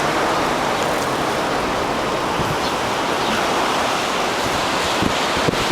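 Strong hurricane wind and heavy surf making a steady rushing noise.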